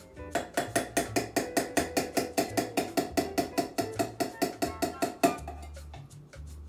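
Rapid, even metal-on-glass tapping, about six taps a second for about five seconds, then stopping suddenly: a metal jigger knocked against a crystal mixing glass to shake out thick cream of coconut. Background music with a bass line plays underneath.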